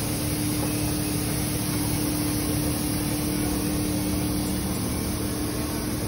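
A misting robot's blower running steadily with a low hum as it sprays out a plume of mist.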